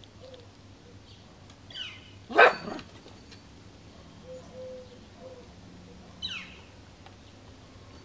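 A dog barks once, loudly, about two and a half seconds in. Birds call around it: short notes falling in pitch come shortly before the bark and again about six seconds in.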